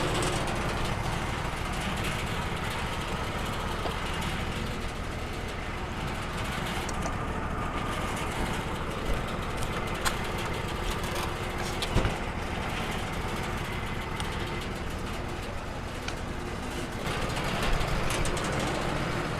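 Wood-Mizer LT35 band sawmill's engine running steadily while the log is handled, with a few short sharp knocks, the loudest about twelve seconds in.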